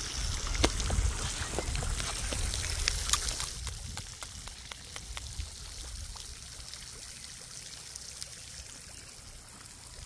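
Steady outdoor noise: a hiss like trickling water, with a low rumble in the first three and a half seconds that then eases off, and scattered soft clicks.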